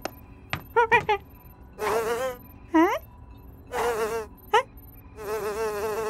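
Cartoon housefly buzzing in short bursts, with a quick rising swoop around the middle, then buzzing without a break from about five seconds in.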